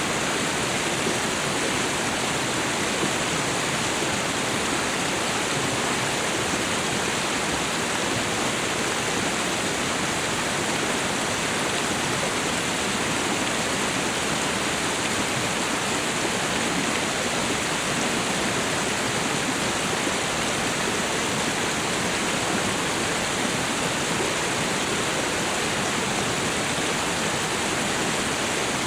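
River water flowing, a steady rushing with no change in level.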